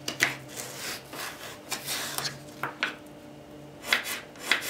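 Kitchen knife slicing a raw carrot into thin slices on a wooden cutting board: irregular cuts, each a short crunch with the blade meeting the board. A pause comes a little after three seconds in, then a quicker run of cuts near the end.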